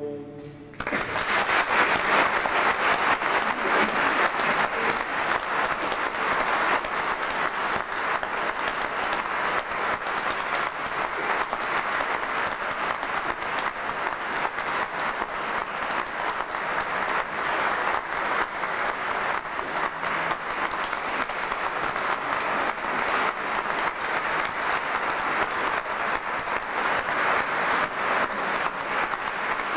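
Audience applauding, breaking out about a second in as the last note of the classical guitar and voice dies away, then going on at a steady level.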